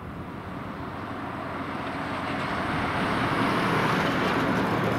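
Cessna 172K Skyhawk's four-cylinder Lycoming engine and propeller running steadily as the light plane flies in on approach, growing louder as it nears and peaking about four seconds in.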